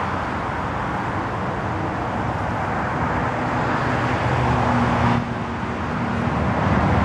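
Steady motor-vehicle noise: an engine hum under a constant rushing haze. The hum strengthens briefly about four to five seconds in, and the level dips for a moment just after.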